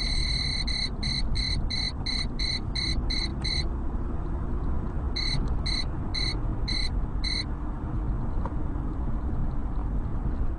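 High-pitched electronic beeping in a moving car, over steady road and engine noise. A long beep breaks into quick beeps about four a second; after a pause of a second or two, five more beeps follow.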